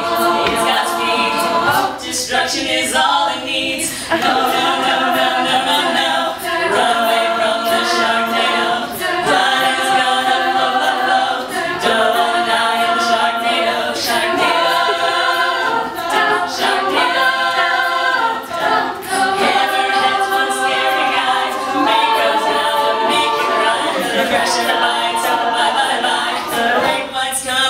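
A live a cappella group singing in harmony with voices only, held chords changing every couple of seconds.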